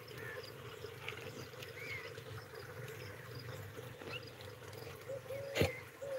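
Dog wading through shallow muddy water, faint sloshing and trickling, with insects chirping faintly behind. A single sharp click about five and a half seconds in.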